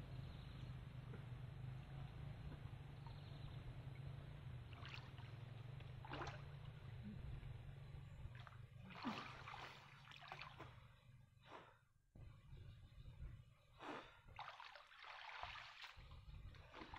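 A man wading chest-deep in river water, splashing and blowing out short, sharp breaths in a run of bursts over the second half, over a steady low rumble that fades about halfway through.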